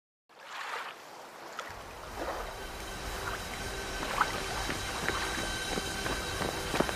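Sea waves and wind fading in from silence, with a low rumble joining a couple of seconds in. Scattered light clicks and faint steady tones run through it.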